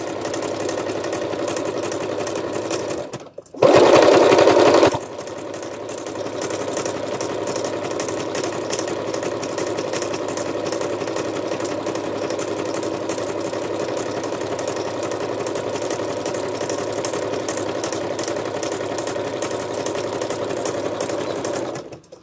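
Electric sewing machine stitching fabric with a steady, fast stitch rhythm. It pauses briefly about three seconds in, runs louder for about a second, then settles back to steady stitching and stops near the end.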